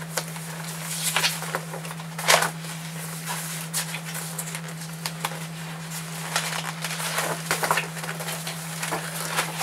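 Paper calendar pages rustling and being turned in scattered short swishes, the strongest a little past two seconds in, over a steady low hum.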